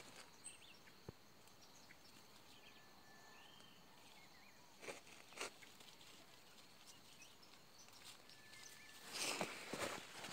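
Near-quiet outdoor ambience with a few faint, short chirps, broken by two brief scratchy rustles about five seconds in and a longer rustling, scraping stretch near the end, as of movement in loose sand and dry brush.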